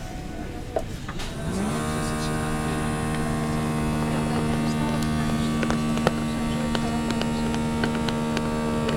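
A machine starts up about a second and a half in, its pitch rising briefly, then runs with a steady hum, with a few faint clicks over it.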